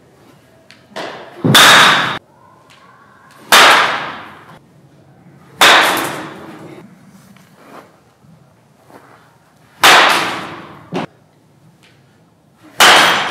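A baseball bat hitting pitched balls in batting practice: five sharp cracks, each ringing briefly, spaced about two to four seconds apart.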